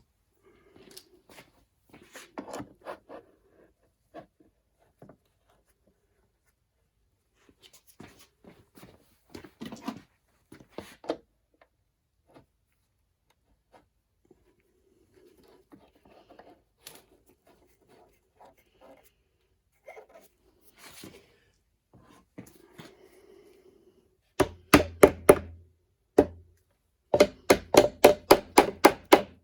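Clamps being tightened to close gaps in a freshly epoxied joint: scattered light clicks and handling at first, then two quick runs of loud, sharp clicks at about four or five a second near the end.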